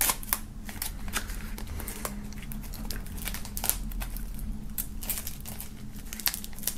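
Plastic shrink-wrap film on a CD case crinkling in irregular sharp crackles as it is picked at and peeled off by hand. The film is hard to pull off.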